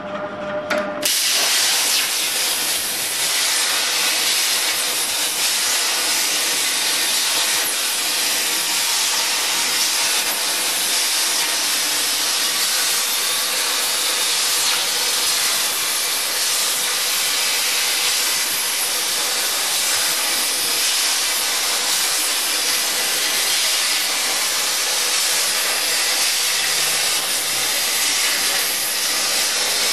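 Hypertherm 1250 plasma cutting torch firing its arc about a second in, then a steady loud hiss as it cuts 10 mm mild steel.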